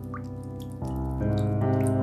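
Water drops falling from melting icicles, scattered sharp plinks, over soft background music of sustained keyboard chords that change and swell a little under a second in.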